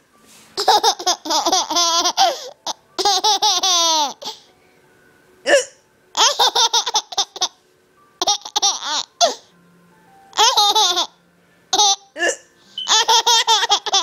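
A mother and her young daughter laughing together in repeated bouts, broken by short, sharp hiccups between the bouts.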